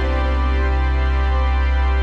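Theme music holding a long sustained chord over a steady deep bass.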